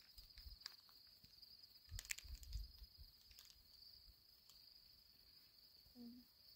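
Faint, steady high chirring of crickets, with a few knocks about two seconds in and a short, low cat mew near the end.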